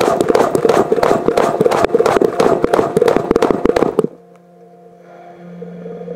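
Washing machine drum tumbling the wash: a dense, irregular clatter of clothes and water knocking and splashing, seen from inside the drum. It stops suddenly about four seconds in, leaving a quieter steady motor hum that rises slightly.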